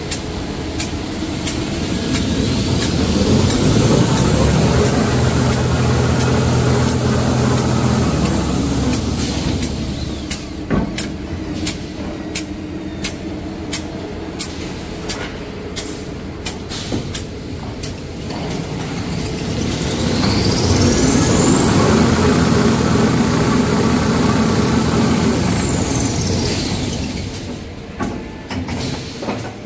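Small kitchen-towel rewinding line running, with a steady low machine hum and repeated sharp clicks. Twice a high whine rises as the machine speeds up, holds for a few seconds, then falls away as it slows.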